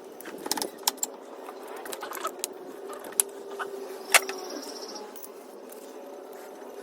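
Sharp metallic clinks and taps of hand tools and small metal parts being handled during work on a motorcycle, a few clicks in quick succession near the start and a louder single clink about four seconds in, over a steady low background hum.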